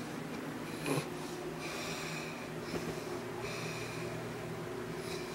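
A person snoring, the snores sounding like farts, over a steady low hum.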